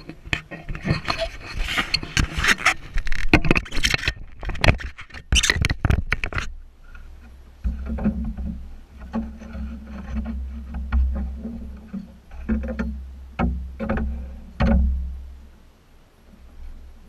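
Splashing and clatter as a hooked muskie thrashes at the side of a fishing boat, dense for about the first six seconds. After that comes a steady low rumble with scattered sharp knocks against the boat.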